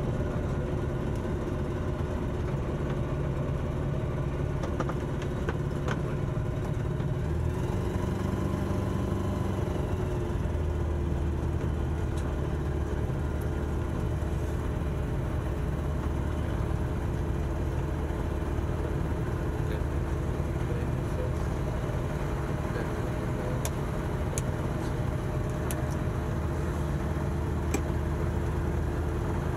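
Single-engine light aircraft's piston engine and propeller running at low power on the ground, heard from inside the cockpit. The engine note settles slightly lower about ten seconds in, then holds steady.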